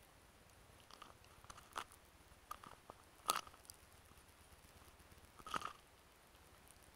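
Handling noise from a handheld camera carried by a running person: a few faint, irregular crackles and clicks over a low hiss, the sharpest about a third of the way in and another shortly before the end.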